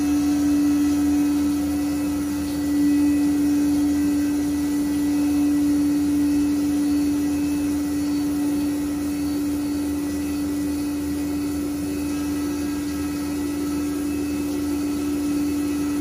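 Tormach 1100MX CNC mill cutting a steel block with a 1/4-inch four-flute end mill under flood coolant: a loud, steady, unchanging whine over a constant hiss.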